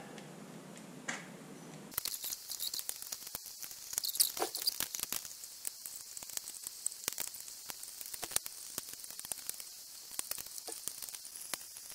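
Scissors cutting holes into a plastic bottle: a dense run of sharp snips and crinkling plastic, starting about two seconds in.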